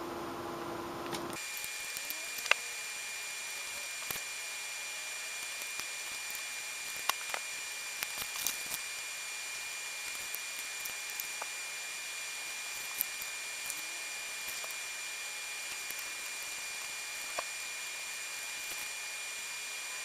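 Steady faint hiss with a thin, steady high-pitched whine, typical of recording noise, broken by a few scattered light clicks and taps as the glass bottle is handled during hot-gluing.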